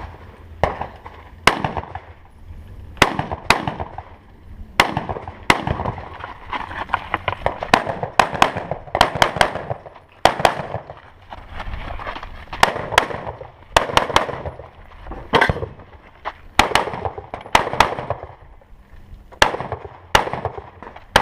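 A string of rifle shots fired through a timed match stage: about two dozen loud, sharp reports at irregular spacing, some in quick pairs or runs, each followed by a short echo.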